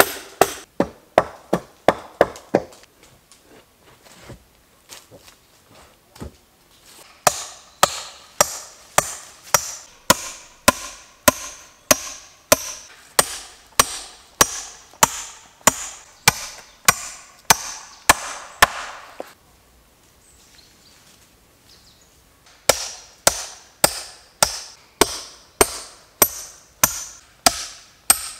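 An axe chopping into a wooden beam, about two strokes a second, in runs broken by a quieter lull a few seconds in and a short pause about two-thirds of the way through.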